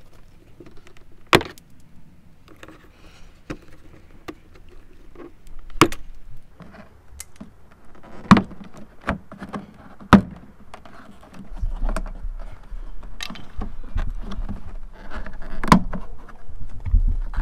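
Plastic wheel-arch liner and its push clips being pried and pulled by hand: scattered sharp clicks and knocks with light rustling, about five of them much louder than the rest.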